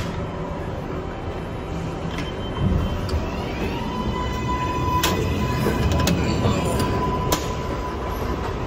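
An R142A subway train running, heard from inside the car: a steady rumble of wheels on rail. About three seconds in, the propulsion motors give a stepped whine that climbs as the train picks up speed, and a few sharp clicks follow from the rail joints.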